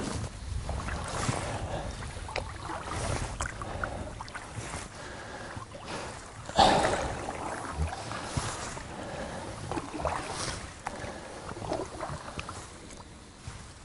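Oars working the water beside an inflatable rowboat: irregular dips and splashes, with one louder splash about six and a half seconds in.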